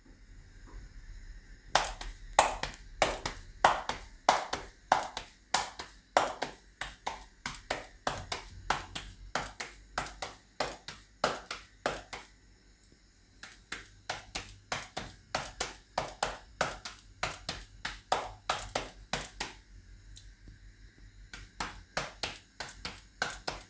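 Sorghum (jowar) flour dough slapped and patted between two palms to flatten it into a rotlo: a quick, even run of soft slaps, about two to three a second, pausing twice.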